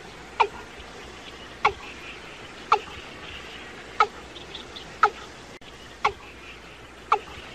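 Watercock calling: a regular series of short, sharp notes, each falling quickly in pitch, about one a second, seven in all. Faint higher chirping runs underneath.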